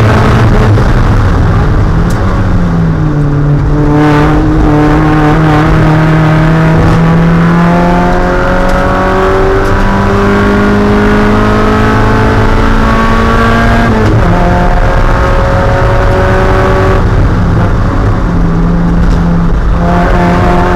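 Spec Miata's 1.8-litre four-cylinder engine accelerating hard, its pitch climbing slowly through long pulls, broken a few times where it drops back in pitch at a gear change.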